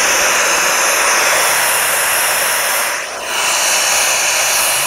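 Loud, steady static hiss from a handlebar-mounted motorcycle radio's speakers, dipping briefly about three seconds in.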